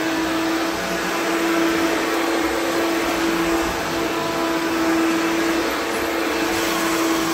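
Self-propelled upright vacuum cleaner running at full speed, its motor holding a steady whine over the rush of air.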